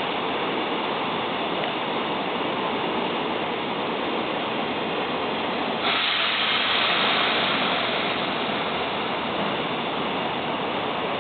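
Izukyu 8000 series electric train at the station: a steady hiss, with a sudden louder hiss starting about six seconds in that eases off over the next few seconds.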